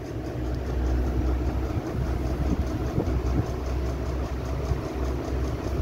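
Steady low mechanical hum with an even background hiss, no clear strokes or changes.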